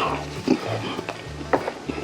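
A person chewing and smacking through a mouthful of braised chicken in rosé sauce, close to the microphone, with a few sharp wet mouth clicks.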